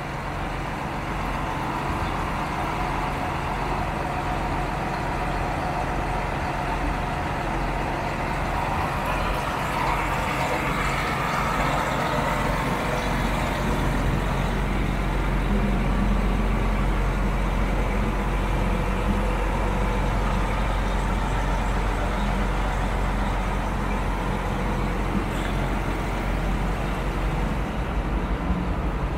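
Diesel engine of a 2004 John Deere 9520T track tractor idling steadily, a low even rumble.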